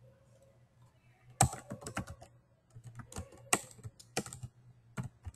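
Typing on a computer keyboard: a quick run of keystrokes starting about a second and a half in, a second run a moment later, then a single key press near the end.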